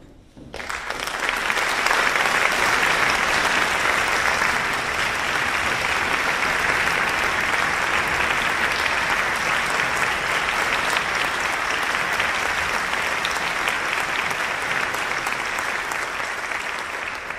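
Audience applauding in a concert hall: steady clapping that starts about half a second in and begins to die away near the end.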